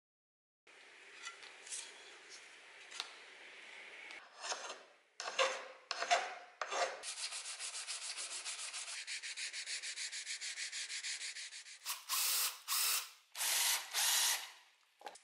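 Wooden knife handle rubbed back and forth by hand on sandpaper: a few separate strokes, then a fast, even run of about four to five strokes a second. Near the end come three short, louder rasping bursts.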